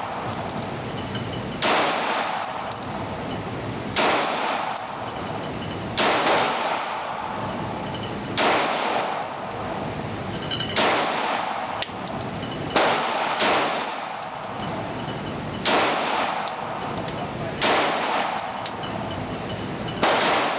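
Mossberg MC2c 9mm pistol fired in slow single shots, about ten shots roughly two seconds apart, each echoing in an indoor shooting range.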